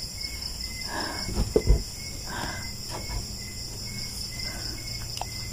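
Crickets and other night insects chirring steadily, with a couple of soft thumps about a second and a half in.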